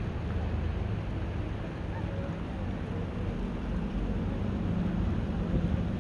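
Steady low rumble of outdoor town-square ambience, with faint voices now and then.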